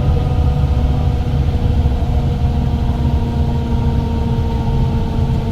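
Tour coach's engine running, a steady low rumble with a steady hum over it.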